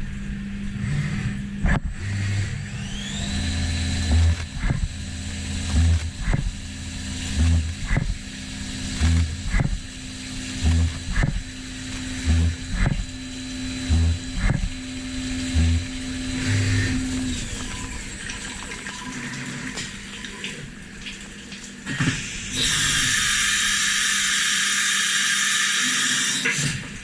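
Syil CNC milling machine at work on copper: the spindle spins up with a rising whine, holds a steady high whine, and winds down about two-thirds of the way through. While it runs there are regular sharp clicks with low thuds about once a second as the machine moves through its cycle. Near the end a loud steady hiss runs for about four seconds and stops.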